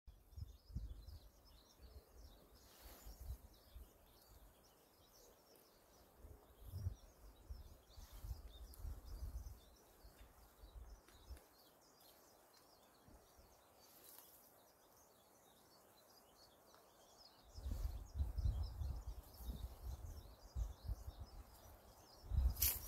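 Wind gusting over the microphone in spells, strongest near the end, with faint chirping of small birds in the background.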